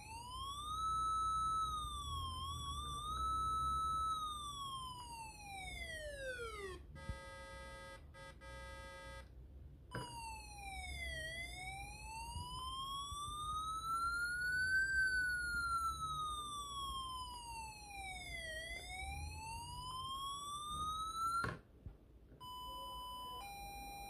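Homemade Arduino-driven electronic siren playing through a small loudspeaker, switched between modes. First a siren tone falls away after rising, then a steady buzzy tone is broken by short gaps. A wail sweeps up and down over about seven seconds, and near the end a two-tone hi-lo alternates between a higher and a lower pitch.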